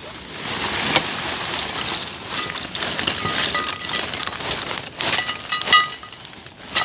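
Lumps of charcoal poured from a sack into a metal wheel-rim stove, clattering and clinking as they tumble in, with a few sharper ringing clinks off the metal about five seconds in.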